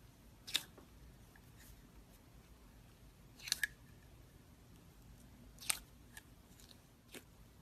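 Clear slime being pressed and squeezed by fingers in a plastic jar, giving a few sharp popping clicks spaced a couple of seconds apart, one of them doubled.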